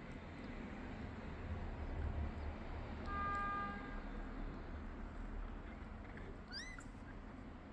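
A newborn kitten gives one short, high mew near the end, pausing from syringe-feeding on milk. Partway through, a steady held tone lasts about a second.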